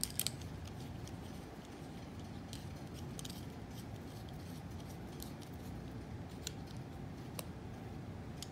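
Small parts of a TIG torch being handled: the tungsten electrode, collet and glass gas-lens cup are fitted together. It gives a few sharp clicks right at the start, then scattered faint ticks, over a steady low hum.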